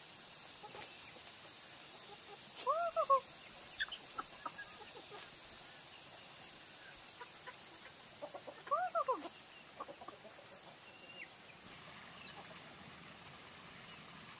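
Chickens clucking in two short bursts, about three seconds in and again about nine seconds in.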